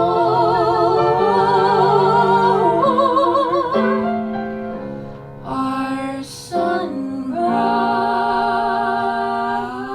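The end of a musical-theatre song: a singer holds long notes with a wide vibrato over sustained accompanying chords. There is a brief lull about four to seven seconds in, and then another long held note.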